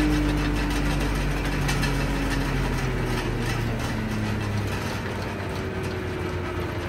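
Tractor-driven hammer mill feed grinder coasting down after being shut off, its hum slowly falling in pitch, with scattered light clicks and rattles over the tractor's running engine.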